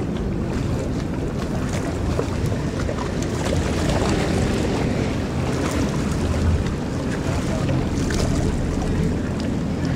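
Steady wind rumbling on the microphone over the wash of open sea water, with faint crackle from small waves.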